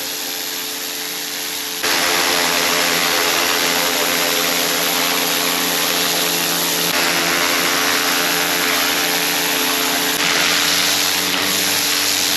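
Husqvarna PW 350 pressure washer running, with its lance's jet hissing onto wet block paving over a steady motor hum. The spray gets louder about two seconds in and then holds steady.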